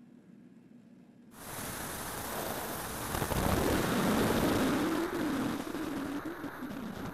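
Onboard audio from a ten-engine electric plane in flight: loud wind rush over the camera's microphone, with the drone of its electric propellers wavering in pitch. It cuts in suddenly about a second in, after near-quiet ground sound.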